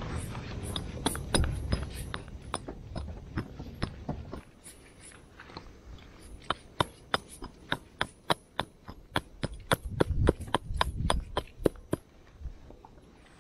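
Back of a hatchet knocking on top of a wooden stake, driving it into the ground: a run of sharp wooden knocks, spaced out at first and then steady at about three a second through the second half.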